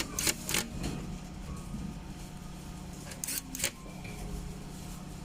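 A few short clicks and knocks of plastic parts being handled and fitted together, in two pairs, over a steady low hum.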